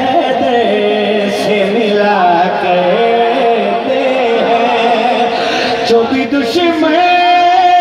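A man singing devotional verse in long held, ornamented notes, amplified through a public-address loudspeaker.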